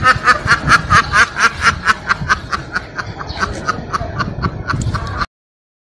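Domestic ducks quacking in a rapid run of short, laughing-sounding calls, about six a second, thinning out and cutting off suddenly about five seconds in.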